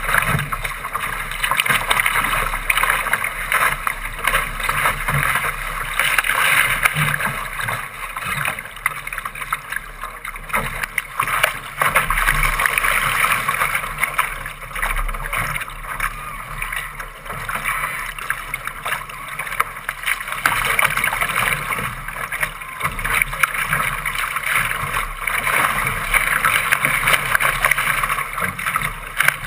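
Water rushing and splashing along the hull of a Laser sailing dinghy driving through choppy water, a steady rush that surges and eases with the waves.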